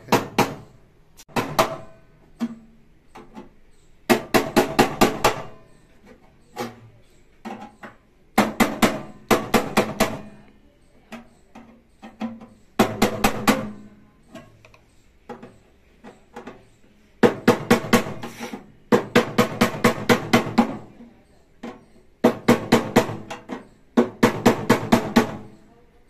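Hammer blows on a chisel or tool held against a microwave oven's sheet-steel cabinet, knocking out a panel to reach the turntable's synchronous motor. The strikes come in quick runs of five to ten, about five a second, each with a metallic ring, separated by short pauses.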